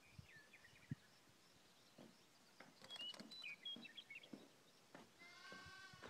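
Faint chirps and scattered light taps from a small bird attacking its own reflection in a pickup truck's rear window. Near the end comes a short, nasal, bleat-like call.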